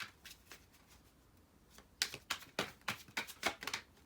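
Tarot cards being handled, giving a run of sharp clicks and taps: a few faint ones at first, then about five a second from about halfway in.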